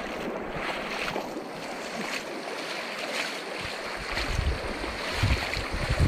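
Rushing stream water, a steady hiss, with low rumbles on the microphone from about four seconds in.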